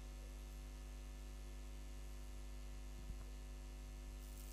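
Steady low electrical mains hum with faint hiss, picked up through the microphone and sound system. A faint tick comes about three seconds in.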